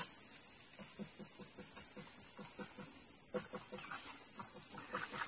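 Steady, high-pitched drone of insects in the forest canopy, unbroken throughout, with soft, irregular low rustling beneath it.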